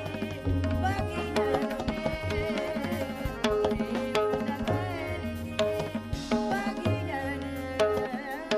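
Background music: sharp hand-drum strokes over a low held bass, with a wavering melodic line above.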